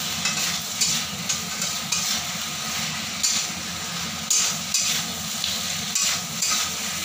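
Metal spatula scraping and stirring chunks of green plantain and papaya in spice paste around a metal kadai, in irregular strokes about once or twice a second, over a steady sizzle of frying as the vegetables are sautéed in the masala.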